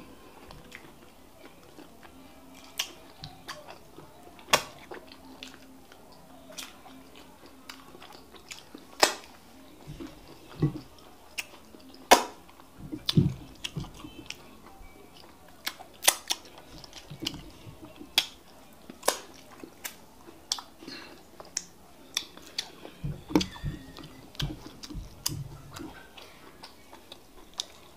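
Wet lip smacks and sharp mouth clicks from eating by hand and licking soup off the fingers, scattered irregularly throughout, with a few dull low thuds.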